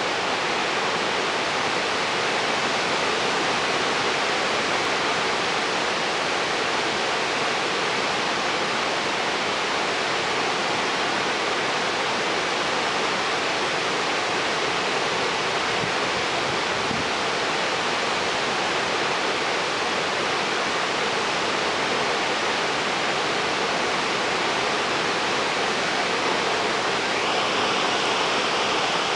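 Kaieteur Falls, a tall waterfall on the Potaro River, making a steady, unbroken rush of falling water.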